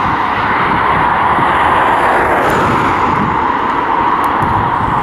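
ET22 electric freight locomotive hauling a container train past at low speed: a steady rushing rumble of the locomotive and its rolling wagons.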